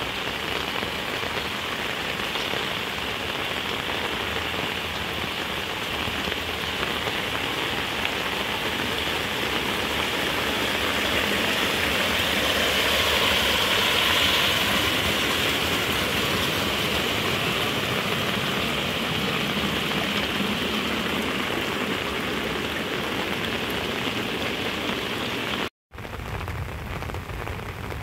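Heavy rain falling steadily, swelling to its loudest about halfway through. It breaks off for a split second near the end and resumes a little quieter.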